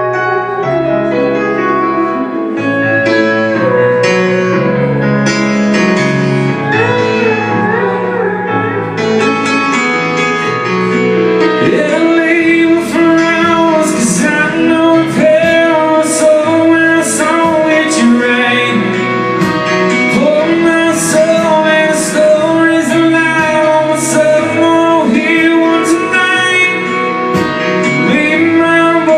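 Live band playing an instrumental passage of a country ballad, led by piano with other pitched instruments bending notes. From about twelve seconds in, drum strikes keep a steady beat, about one a second.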